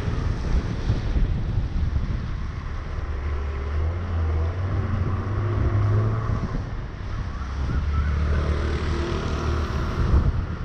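Wind buffeting the microphone of a moving vehicle, over the rumble of the vehicle and its tyres hissing on the wet road. A low engine drone comes through twice, mid-way and near the end.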